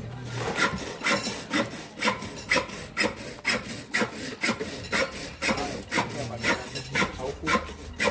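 Steady rhythmic scraping, about two to three strokes a second, a hard surface worked back and forth by hand.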